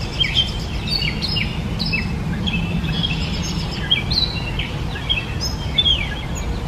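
Gray catbird singing: a continuous jumble of short, varied squeaky chirp phrases with hardly a pause. Under it runs a steady low rumble.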